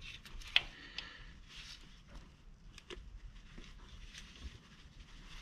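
Faint, scattered clicks and light taps of a hand wrench being fitted to and worked on the serpentine belt tensioner's 12 mm mounting bolt.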